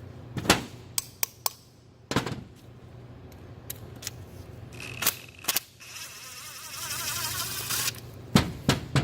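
Sharp metal clicks and clinks of hand tools working on a Volvo D13 EGR valve's bolts, a few single knocks early on and again near the end, with a noisy rasping stretch of about two seconds between them.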